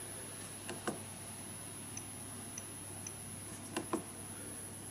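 Nest Thermostat E's click sounds as its ring is turned through the menu: faint, evenly spaced ticks about half a second apart, and two pairs of louder clicks, about a second in and near the end.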